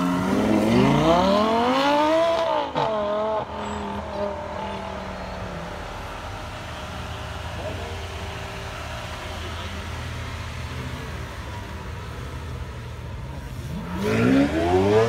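A Lamborghini Gallardo's V10 accelerating hard away, its revs climbing for about two seconds before an upshift, then fading. A Lamborghini Aventador's V12 then idles steadily, and near the end its revs climb sharply as it pulls away.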